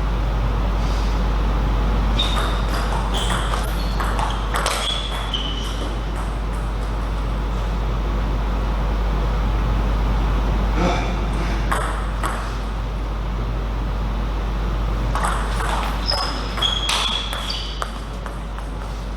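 Table tennis ball clicking back and forth off rackets and table in three short rallies, with a few brief high squeaks among the hits, over a steady low hum.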